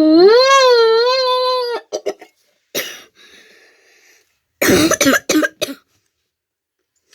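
A vocal imitation of a car engine: one pitched hum that rises and wavers for about two seconds. Then, about five seconds in, a quick run of about four coughs.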